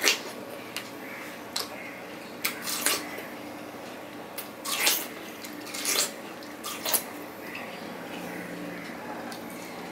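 Bites and chewing of juicy watermelon slices: a series of short, wet, crisp crunches at irregular intervals, fewer towards the end.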